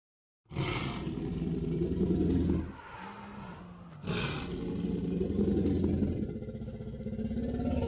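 Dinosaur roar sound effects from an augmented-reality dinosaur app: a long, low roar begins about half a second in, a quieter low tone slides down after it, and a second long roar starts about four seconds in.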